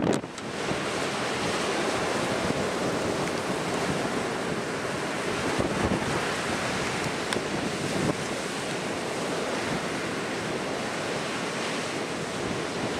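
Breaking ocean surf mixed with strong wind buffeting the microphone: a steady, dense rushing noise, with a brief drop just after the start.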